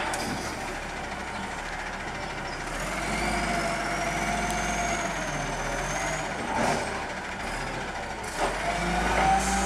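Garbage truck's engine revs up and a hydraulic whine rises and then holds for about three seconds as its arm lifts a trash bin. A sharp clunk comes about seven seconds in, and the engine revs up again near the end.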